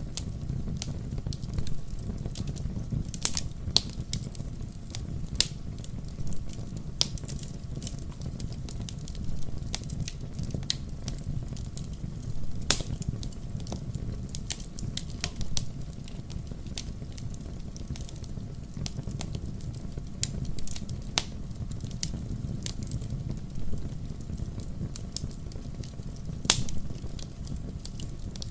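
Wood fire burning in a fireplace: a steady low rumble of flames with irregular sharp crackles and pops, a few louder snaps among them.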